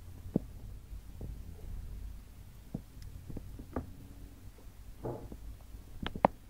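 Low, steady hum of aquarium equipment, with scattered faint clicks and a sharper pair of clicks near the end.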